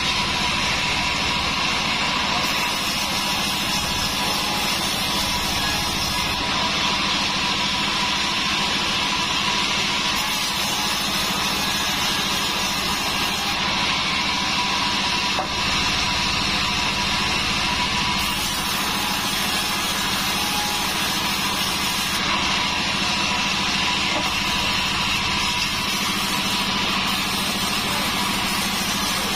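Large vertical sawmill band saw running steadily while its blade cuts lengthwise through a thick wooden slab fed by hand, a constant machine hum with a faint whine over it.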